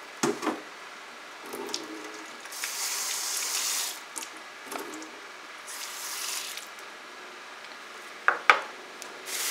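Kitchen tap running water into a bowl of cut potato wedges as they are rinsed, in two spells of a second or so. A few knocks near the start and two sharp knocks near the end, the loudest sounds.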